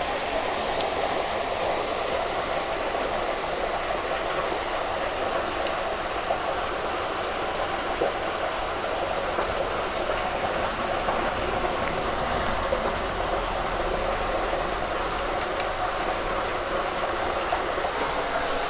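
Water rushing steadily through a sewer drain that has a strong current.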